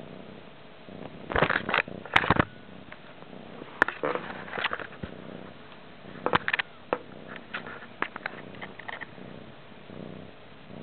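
A cat purring steadily and close, broken by several loud clusters of knocks and scrapes as its paws bat at the camera.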